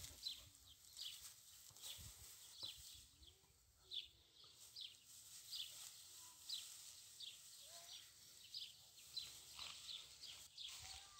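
Faint outdoor ambience with short, high, downward-sliding chirps repeating about twice a second: small birds calling.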